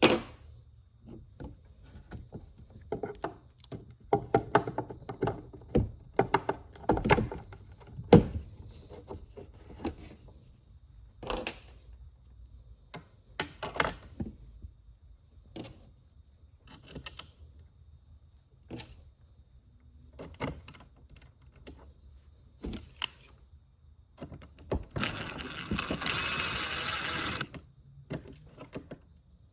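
Hand work on a drawer door and latch: an irregular string of light knocks, taps and clicks as tools and parts are handled. Near the end comes a steady, noisy sound lasting about two and a half seconds.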